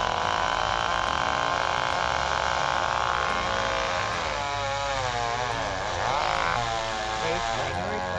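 Chainsaw engine running: steady at first, then from about four seconds in its pitch rises and falls repeatedly as the throttle is worked.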